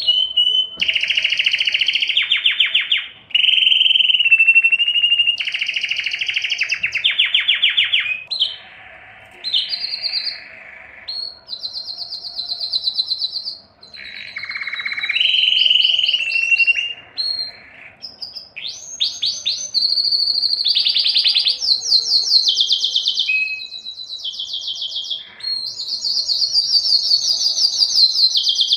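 Male domestic canary singing its excited breeding song: a long run of fast trilled phrases, each a second or two of rapidly repeated notes, jumping up or down in pitch from one phrase to the next with short breaks between.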